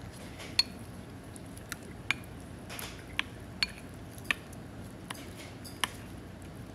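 Red spoon clinking and scraping against a ceramic donburi bowl of oyakodon as it is scooped into: about seven short, sharp taps at irregular spacing, the first the loudest, over a steady background hum.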